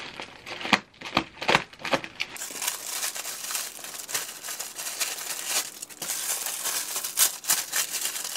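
Plastic packaging crinkling and rustling as it is handled and pulled open. There are separate crackles at first, then a continuous dense crinkle from a little over two seconds in.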